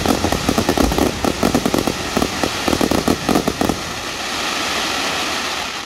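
Aerial fireworks: a rapid, dense volley of bangs and pops for nearly four seconds, then the pops stop and a steady fizzing crackle of bursting stars carries on.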